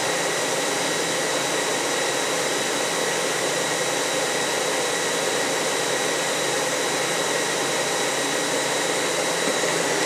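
nCube MediaCube video-on-demand server running while it boots: a steady, loud rush of cooling-fan noise with a thin, high, steady whine on top.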